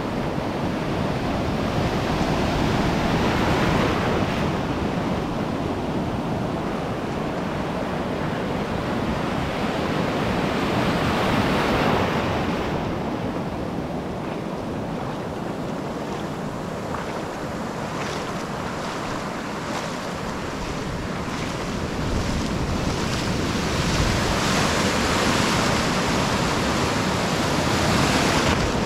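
Small surf breaking and washing up a sandy beach, foam rushing in and out around the camera's position in the shallows. It swells louder as each wave comes in, about four or five times, and eases between.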